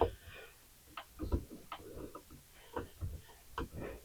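Faint, irregular clicks and taps from hands working on a wall light switch, fitting it and turning its mounting screws.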